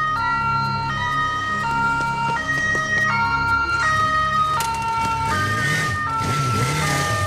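Synthesizer music playing a melody of short held notes. From about five seconds in, a motorcycle engine revs up and down as the bike pulls away.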